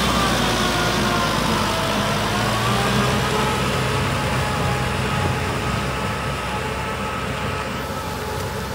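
Kubota M6040 SU tractor's four-cylinder diesel engine running steadily while driving a rotary tiller through wet paddy mud, growing gradually fainter as the tractor moves away.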